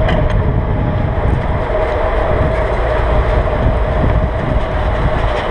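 Wind buffeting the microphone of a camera mounted on a moving bicycle: a loud, continuous low rumble with a steady hum running through it.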